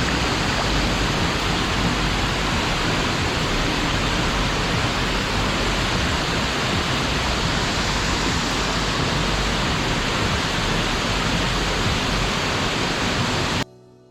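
Rushing water of a waterfall and river: a loud, steady roar that cuts off abruptly near the end.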